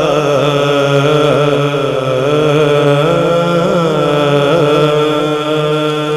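Naat recitation: a singing voice holding long, drawn-out notes that waver slowly in pitch.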